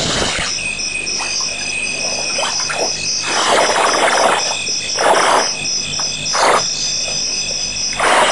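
Night chorus of frogs and insects at a waterhole, with a high pulsing call about five times a second over a steady high trill. Several louder bursts of rushing noise come and go through the middle.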